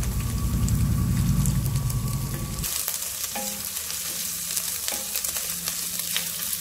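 Crushed garlic sizzling and crackling in hot oil in a nonstick pan, turned over with a wooden spatula; the garlic is frying to light brown. A low hum underneath stops abruptly about two and a half seconds in.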